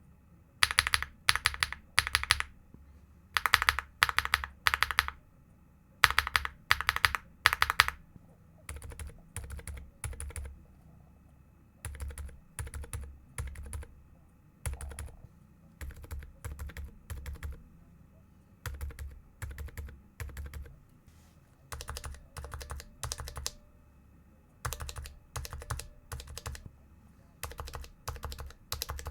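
Mechanical keyboard switches being typed in short quick runs of keystrokes, a run every second or two. The keystrokes are loud and clacky at first, then from about eight seconds in become noticeably softer.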